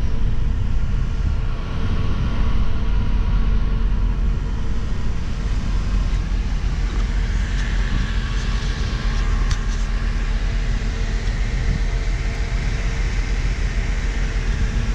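Passenger van driving at road speed, heard from inside the cabin: a steady low rumble of engine and tyres on the road.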